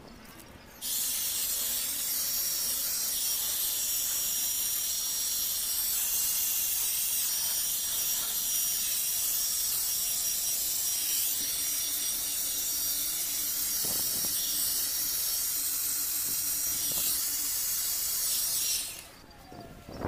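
Handheld electric paint spray gun running and spraying wood finish: a steady hiss with a thin high whine over it, starting about a second in and cutting off shortly before the end.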